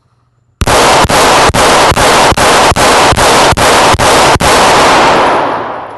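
1911 pistol fired in a rapid steady string of about ten shots, two to three a second, starting about half a second in. The shots echo in an indoor range, and the echo dies away near the end.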